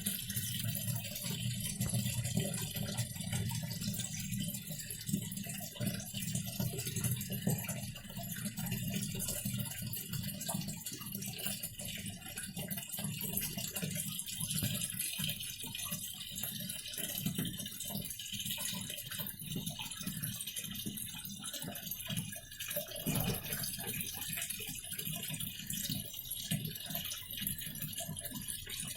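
Videocon DiGi RIO PLUS 6.5 kg washing machine running its wash cycle: a steady churning and rattling of water and laundry in the tub, over a low hum.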